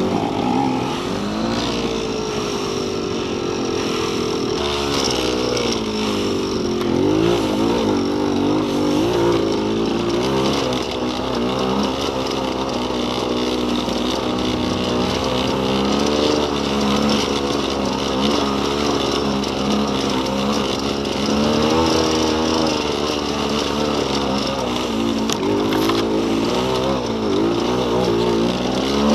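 Dirt bike engine running over a rocky trail, its pitch rising and falling constantly as the throttle is opened and closed.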